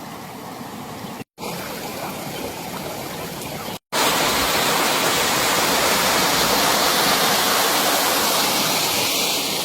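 Rushing water of a mountain stream and small waterfalls pouring over rock, a steady hiss. It cuts out twice for an instant and is louder after about four seconds.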